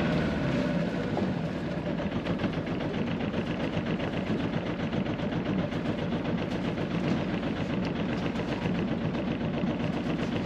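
Sailboat's inboard engine running steadily, with a rapid, even pulsing.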